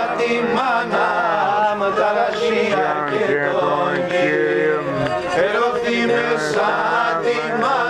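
Men singing a slow Pontic Greek folk song, the melody wavering and ornamented.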